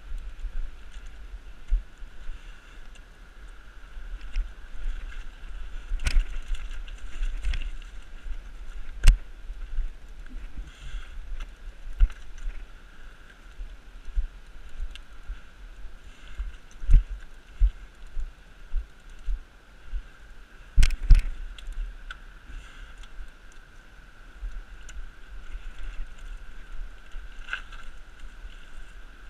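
Bicycle jolting over a rough, rocky woodland path: irregular low bumps and rattles as the wheels go over roots and stones, with several sharp knocks.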